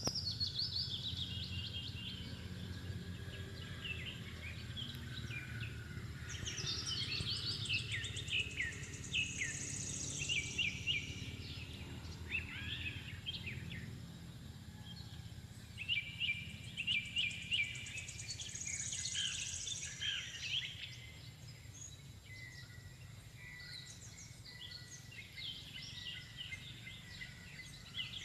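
Outdoor ambience of many short, high chirping bird calls coming in bursts every few seconds, over a steady low rumble.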